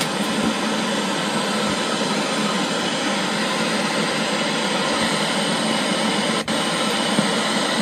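Portable Bluetooth speaker's FM radio giving out a loud, steady static hiss, tuned off-station. A short click cuts in about six and a half seconds in.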